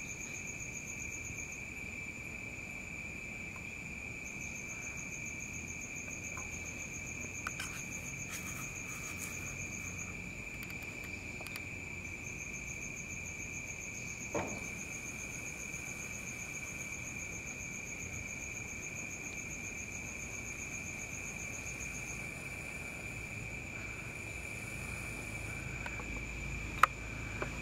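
Night insects, crickets, trilling: one steady high trill throughout, with a second, higher pulsing trill that stops and starts several times. A few soft knocks, a sharp click near the end, and a low rumble coming in just before the end.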